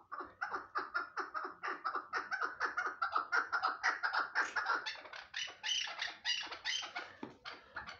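Chukar partridge calling: a long, even series of rapid clucking notes, about five a second.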